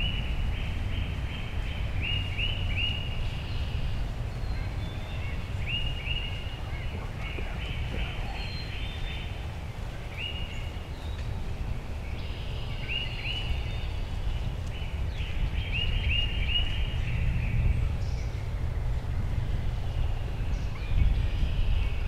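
A songbird singing, repeating short phrases of several quick high notes every couple of seconds, over a steady low rumble.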